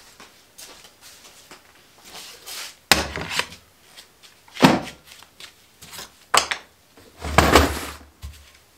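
A bar clamp and a cut 2x4 being handled on a wooden workbench: a few loud knocks and clatters a second or two apart, with quieter small knocks between. No saw is running.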